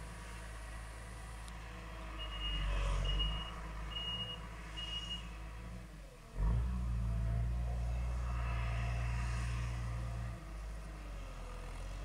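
A self-propelled olive harvesting machine's engine running, with four evenly spaced reversing beeps a couple of seconds in as it backs up. About halfway through, the engine note dips briefly, then comes back louder and holds for about four seconds before easing off.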